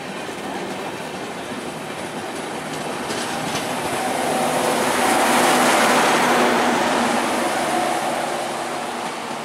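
LHB passenger coaches rolling past at close range, wheels clicking over rail joints, followed by the train's end power car with its diesel generator sets. Its steady hum joins the rolling noise, which swells to its loudest about six seconds in and then fades as the train goes by.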